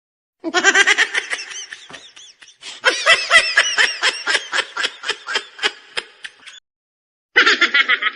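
Laughing sound effects: three short clips of rapid, high-pitched, pulsing laughter, each cut off into dead silence before the next begins.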